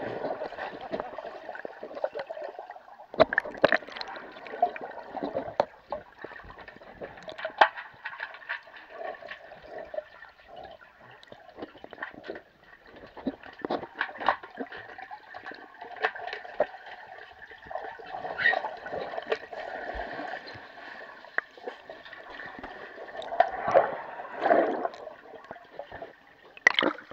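Dogs swimming, heard through an underwater camera: muffled sloshing and gurgling water with irregular sharp splashes and clicks as their legs paddle, in a few louder surges.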